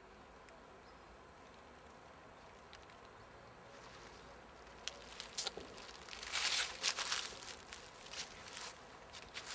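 Footsteps through dry leaf litter and ivy ground cover, starting about five seconds in and getting louder, over a faint steady background hiss.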